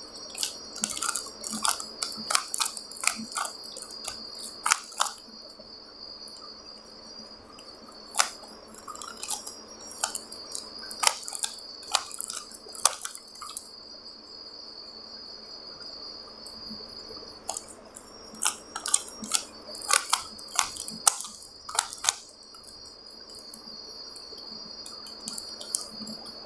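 3x3 Rubik's cube being turned by hand: quick plastic clicks of the layers snapping round, in three runs of rapid turns. A steady high-pitched tone sounds underneath.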